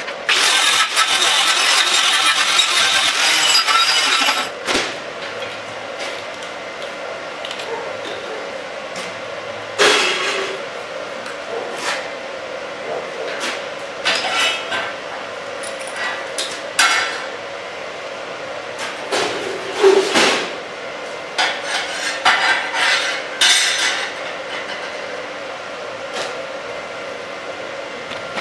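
Steel test plates and locking pliers clinking and knocking as they are handled and set up on a metal bench, a dozen or so separate sharp clinks. Before that, about a second in, comes a harsh crackling hiss that lasts some four seconds.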